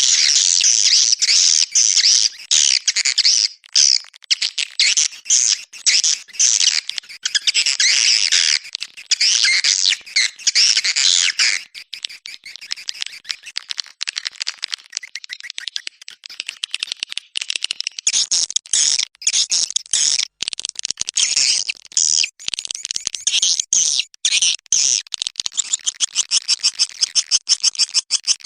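Swiftlet call recording of the kind played to lure swiftlets into a nesting house: dense, rapid high twittering chirps. They are thickest in the first ten seconds or so, thin out in the middle, and turn into a fast, even run of chirps near the end.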